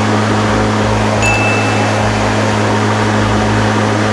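Victa Twin 18V Powercut battery lawn mower with a 36-volt brushless motor, running steadily off the grass with its single bar blade spinning freely: a steady hum over a dense whirr. A short, thin high tone sounds a little over a second in.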